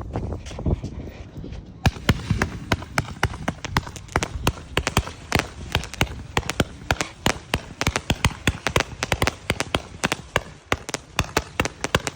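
205-shot zipper cake firework firing, a rapid, uneven stream of sharp pops several a second, starting about two seconds in. It seems quiet for a cake.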